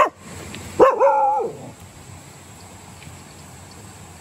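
Dog barking twice: a short, sharp bark at the start and a longer, louder bark about a second in.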